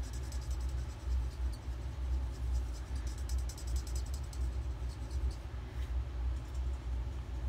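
Steady low rumble of a running furnace, with the fine scratching of an alcohol marker's nib on paper in short strokes, mostly in the first second and again from about three to five seconds in.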